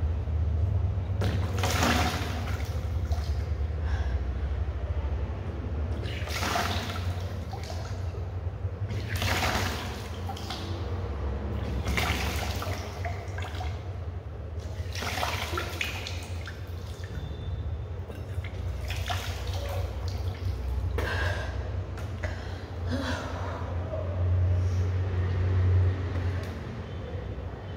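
A woman retching with her fingers down her throat, bringing up the water she has drunk in gushes that splash out of her mouth, in bursts every few seconds. This is Kunjal Kriya, the yogic cleanse of vomiting back a large draught of water. A steady low hum runs underneath.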